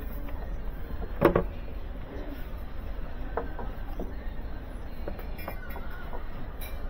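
Stiff picture-printed serving trays knocking and clattering against each other as they are lifted and laid back down: one sharp knock about a second in, then a few lighter taps, over a steady low background rumble.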